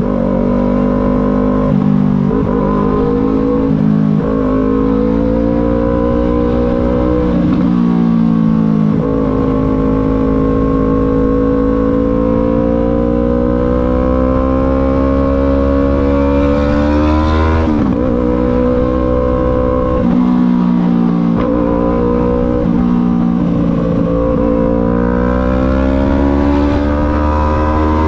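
Yamaha MT-03 motorcycle engine pulling through the gears: the engine note climbs, then drops sharply at each gear change, several times, with a long stretch of steadier cruising in the middle.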